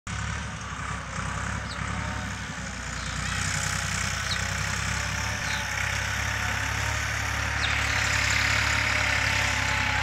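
A steady, low engine hum under an even hiss.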